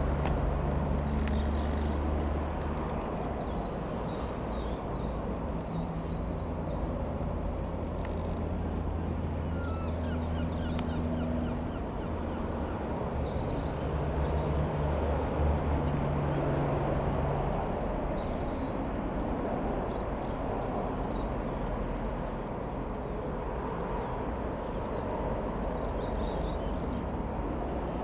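Cessna F172N Skyhawk's four-cylinder piston engine and propeller running steadily at low power, a low hum that shifts slightly in pitch.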